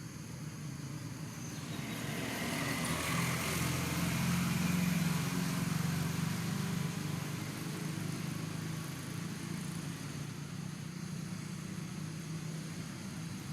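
A motor vehicle's engine humming as it goes by, growing louder to a peak about four to five seconds in, then easing off to a steady lower hum.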